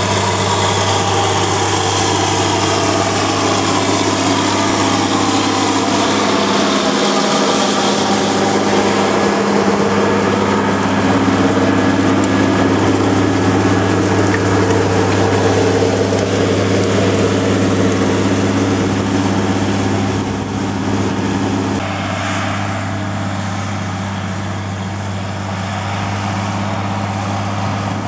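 Case Quadtrac tractor's diesel engine running steadily under heavy draught, pulling a deep-working tine cultivator and press through the soil. A higher whine falls in pitch over the first few seconds, and the sound eases a little about two-thirds of the way through.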